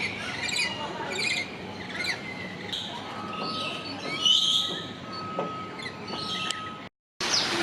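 Several birds chirping and calling, with quick runs of short notes and a louder call about four seconds in; a thin steady tone is held through the middle.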